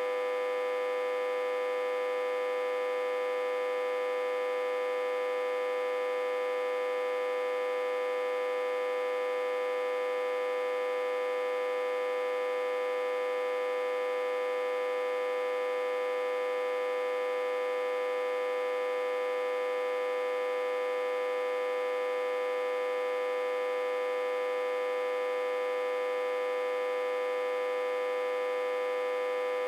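Autotransformer humming: one steady, unchanging hum with a strong tone and many overtones. It is driven at about 60–80 V, connected in reverse to a step-down transformer.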